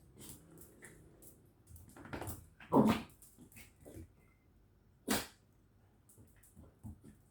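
A corgi puppy and a village dog at play, making short, irregular dog noises and scuffles, the loudest a little before three seconds in and another sharp one about two seconds later.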